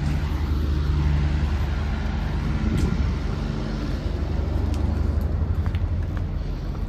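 Truck engine running with a steady low drone, with a few faint ticks over it.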